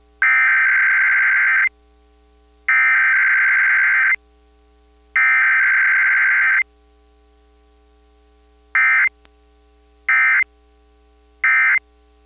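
Emergency Alert System SAME digital data bursts: three warbling header bursts of about a second and a half each, a second apart, then three short end-of-message blips near the end. The end-of-message follows the header directly with no attention tone between them.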